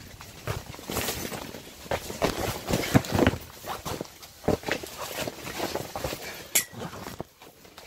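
Canvas tent fabric rustling and shifting as a metal centre pole is pushed up into the tent's peak, with scattered knocks of the pole and a sharper clink near the end.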